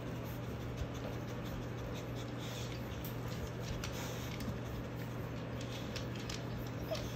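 Puppies eating wet raw food from a stainless steel saucer bowl: soft smacking and licking with scattered small clicks, as teeth and claws touch the metal pan. A steady low hum runs underneath, and there is a brief squeak near the end.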